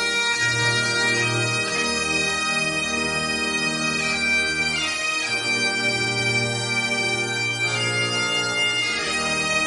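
Bagpipes playing a slow melody over steady drones, the melody notes changing every second or two.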